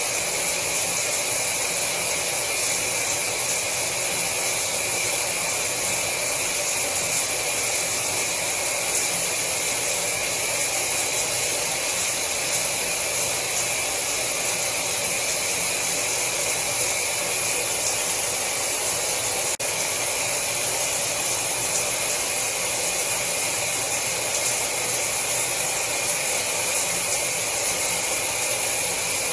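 Shower water spraying and splashing in a steady hiss.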